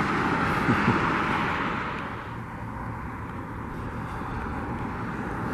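A vehicle going by outdoors, its rushing noise fading away over the first two seconds and leaving a low steady background hum.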